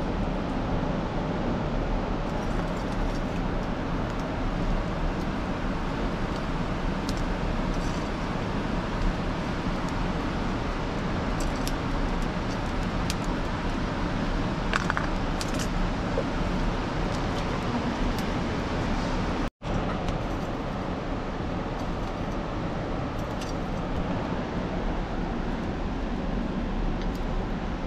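Wood fire burning steadily in a cave hearth, a continuous rushing sound with scattered faint crackles and pops.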